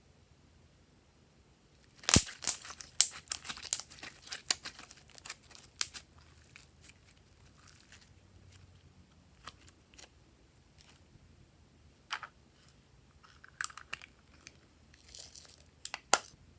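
Glossy slime being pressed and stretched by hand, crackling with a quick run of sharp pops and clicks for a few seconds, then scattered single pops and a short crinkly burst near the end.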